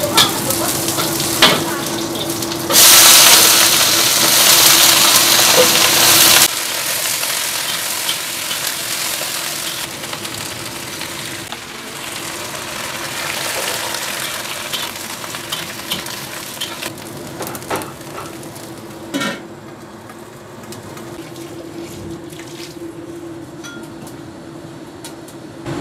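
Stir-frying in a wok: about three seconds in, a loud burst of sizzling as cut cabbage goes into the hot oil and garlic, lasting a few seconds. Then it settles to a quieter steady sizzle, with the metal spatula clicking and scraping against the wok.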